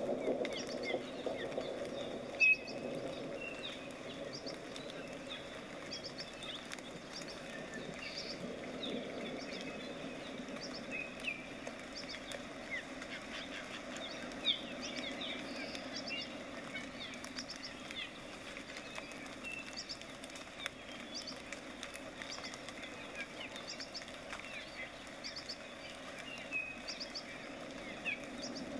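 Small paintbrush dabbing and stroking acrylic paint on a stretched canvas, making soft short scratches, against a steady background hiss and repeated small high chirps.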